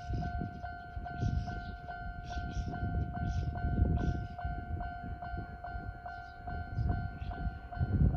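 Japanese level-crossing warning bell ringing in the old standard electronic 'fast' type, a two-tone ding repeating about three times a second, over the low rumble of a train passing the crossing.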